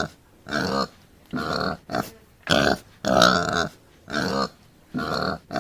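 Domestic pig grunting: a run of short grunts, about two a second.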